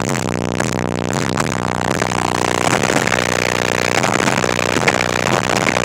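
Music with heavy bass played loud through four Resilient Sounds Gold 15-inch subwoofers on a Taramps 8k amplifier, wired to 1 ohm in a 1996 Chevy Blazer, heard from outside at the truck's roof.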